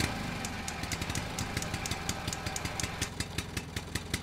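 An engine idling steadily, with an even ticking several times a second.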